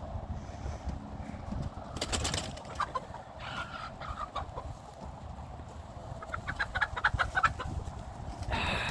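Backyard poultry (chickens and guinea fowl) clucking and calling over a low rumble. There are a few scattered calls, then a quick run of clucks about six seconds in, and a louder harsh squawk near the end.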